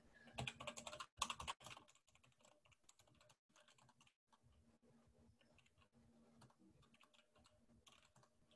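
Computer keyboard typing a command: a quick run of keystrokes in the first two seconds, then faint scattered key taps and another short burst near the end, over a faint steady low hum.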